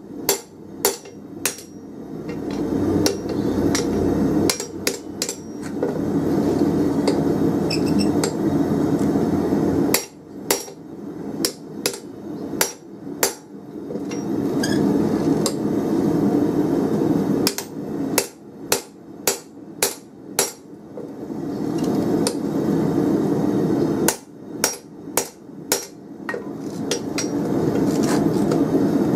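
Hand hammer striking a spring fuller that pinches a red-hot 24 mm round steel bar on the anvil, in quick runs of ringing blows with short pauses between. Between the runs a steady low rumble swells up and is as loud as the blows.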